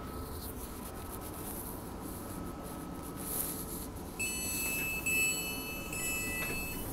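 Electric passenger train running, a steady rumble heard from inside the carriage. About four seconds in, a high-pitched metallic squeal from the train's running gear sets in and comes three times in quick succession.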